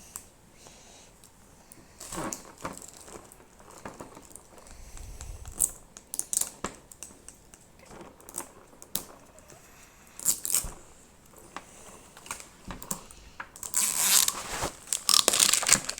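Plastic wrapper on a toy pack being pulled and torn open, in a series of short rustles and snaps that build to a longer, louder crinkling near the end.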